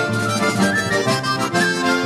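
Accordion-led dance music with a steady beat and a recurring bass line.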